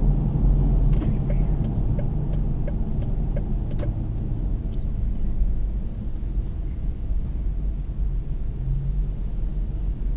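Car driving and slowing to a crawl, a low rumble of engine, tyres and wind heard through a hood-mounted GoPro housing. There are a few faint ticks in the first few seconds, and the rumble eases off about halfway through as the car slows.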